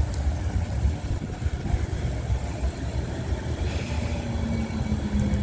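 Low steady rumble of an idling vehicle, with a steady hum joining about four seconds in.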